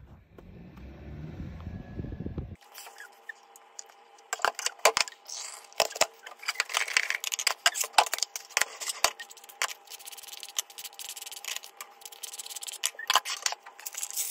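Low rumble of wind on the microphone over snow. Then kitchen handling sounds while breakfast is made: cardboard packets and a carton being picked up and set down, with many small clicks and knocks over a steady two-note hum.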